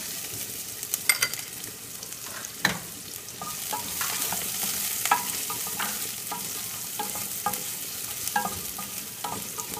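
Carrots, garlic and ginger sizzling in hot coconut oil in a metal pan as they are stirred, a steady hiss with a utensil knocking and scraping against the pan many times.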